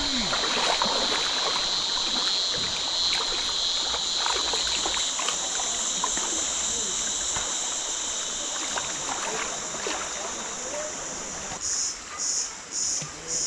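River water running steadily, with a constant high-pitched buzz over it. Near the end a high pulsing sound starts, beating about two or three times a second.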